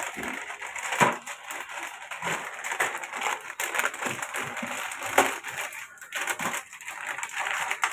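Plastic packet of frozen mini samosas crinkling as it is handled and torn open, with sharper crackles about a second in and again a little after five seconds.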